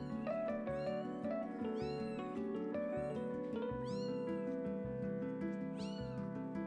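Young kittens mewing in short, high-pitched cries, about five times, over steady background music.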